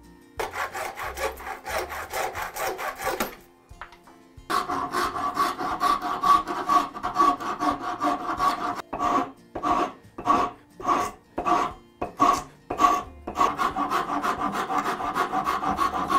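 A rasp or file stroked back and forth across the English oak scales of a screwdriver handle, shaping the wood, with a faint ringing note through the strokes. It scrapes fast and steadily, pauses briefly near 4 seconds, slows to separate strokes about two a second in the middle, then speeds up again.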